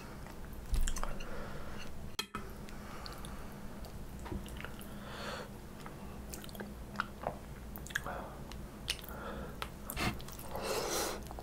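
Close-miked chewing of stir-fried kimchi and tofu, with short wet mouth sounds and light clicks throughout. About ten seconds in comes a louder bite into a slab of tofu topped with kimchi.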